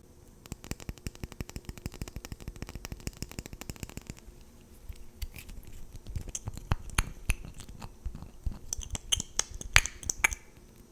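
Makeup items being handled and tapped close to the microphone: a quick run of clicks, about ten a second, for a few seconds, then slower, scattered clicks and taps, the loudest near the end.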